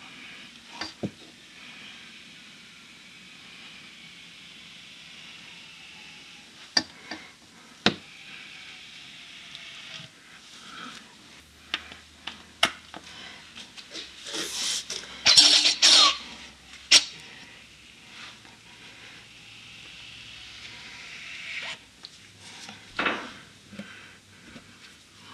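Hand oil pump and hose at work filling a gearbox with gear oil from beneath: scattered clicks and knocks of the pump and fittings, with a short, loud hissing sputter about halfway through.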